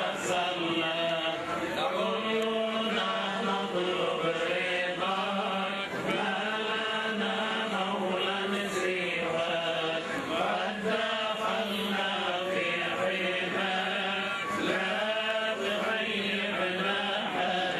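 A group of men chanting a funeral prayer, many voices held and sliding between pitches in one continuous flow.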